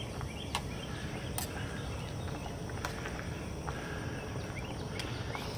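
A few light clinks of a metal spoon stirring egg into ramen in a steel canteen cup on a canister camp stove, over a steady low hiss and faint chirping.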